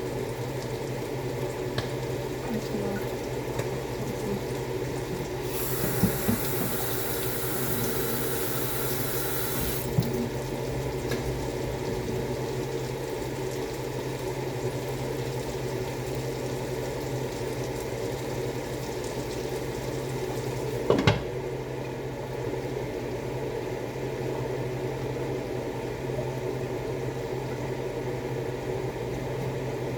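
A steady low kitchen hum, with a water tap running for about four seconds near the start and a single knock about 21 seconds in.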